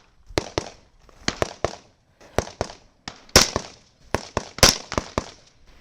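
Semi-automatic rifle gunfire: a rapid, irregular string of about fifteen shots in pairs and clusters, some louder than others, each with a short echo.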